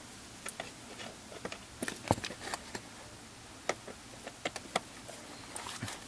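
Light, irregularly spaced clicks and taps of a ratchet wrench and bit being worked onto a screw, about ten in all, with the sharpest knock about two seconds in.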